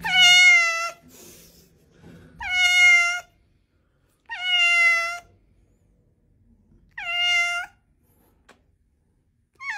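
Cat meowing four times, evenly spaced, each call a bit under a second long and holding a steady high pitch; a fifth meow begins at the very end.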